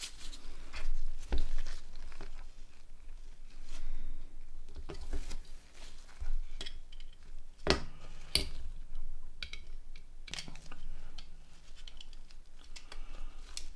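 A mobile phone being reassembled by hand, with its back put back on: scattered sharp plastic clicks and taps among light rustling and scraping of small parts.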